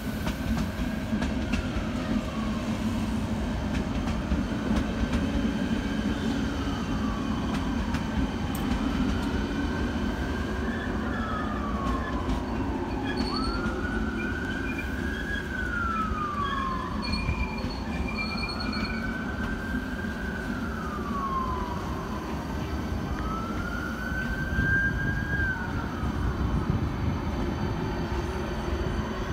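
A double-deck CityElefant electric train running past on the station tracks, with a steady low rumble of wheels and running gear. Over it a siren wails, one tone sliding up a little then falling, repeating about every three seconds and stopping near the end.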